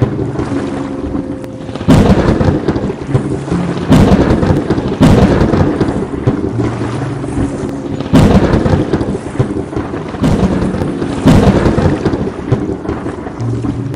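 Thunderstorm: thunder cracking about six times, each crack falling away into rumbling, over steady rain.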